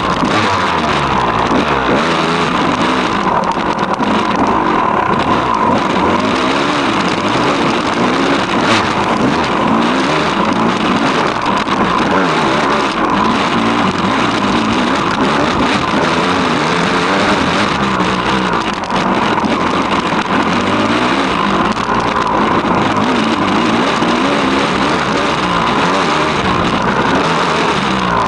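Engine of an off-road motor vehicle, picked up by a handlebar-mounted camera, running under load and rising and falling in revs again and again while riding.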